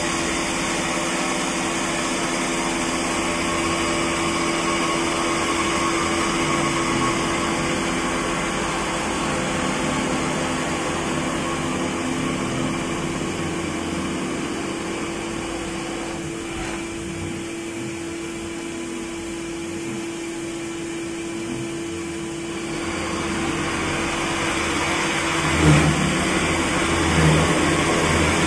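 CNC vertical machining center face-milling the top of a metal block under flood coolant: a steady spindle hum with the hiss of the cut and the coolant spray. About 23 seconds in the hum drops away and the cutting noise grows rougher, with a few low knocks near the end.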